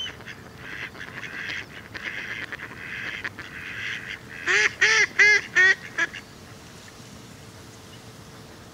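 Waterfowl calling across a lake: faint chatter at first, then about halfway through a loud run of about six short honks from a goose lasting a second and a half.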